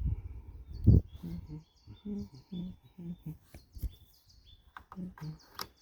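Birds chirping over and over, short falling chirps about two a second. A knock sounds about a second in and a sharp click near the end.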